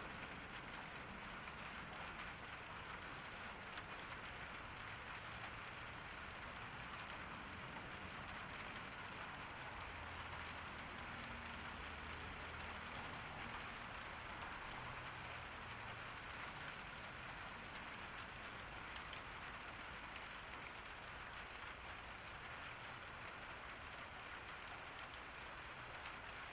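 Steady rain falling, an even hiss of drops that keeps up without let-up; a faint low hum shows for a few seconds near the middle.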